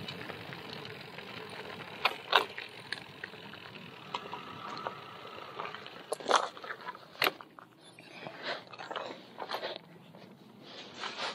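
Bicycle tyres crunching over gravel as the bike slows and pulls in to stop. Several sharp clicks and knocks stand out, the loudest about two and a half seconds in and again around six to seven seconds.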